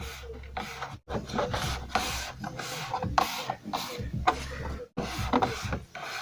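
Irregular clicks, scraping and rubbing of plastic and metal parts being handled, as a Lada Granta's door trim and window-regulator parts are refitted.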